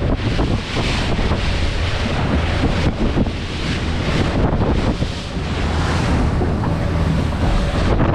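Heavy wind buffeting the microphone over the rush of choppy water along the hull of a small aluminium boat under way, a Stabicraft 2050 Supercab, a steady, noisy din.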